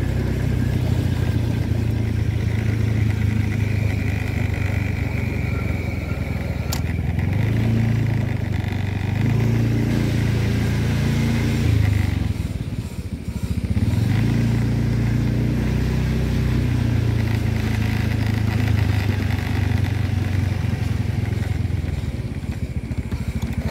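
Motorcycle engine running as the bike rides along. About halfway through the engine eases off and dips briefly, then picks up again. A single sharp click comes about seven seconds in.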